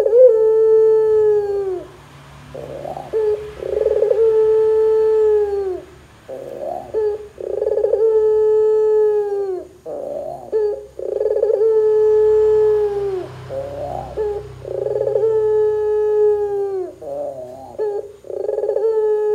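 Barbary dove (domestic ringneck dove) cooing loudly and repeatedly. Each phrase is a short note followed by a long, drawn-out coo that drops in pitch at the end, and the phrases come about every three to four seconds.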